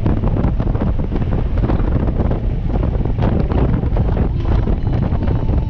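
Wind buffeting hard on the microphone of a moving Harley-Davidson Street Glide motorcycle, with its V-twin engine running underneath.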